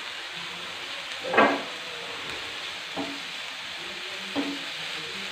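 Shredded cabbage, green capsicum and onion sizzling in oil in a non-stick frying pan while being stirred with a silicone spatula. Three short louder scrapes of the spatula stand out, the first, about a second and a half in, the loudest.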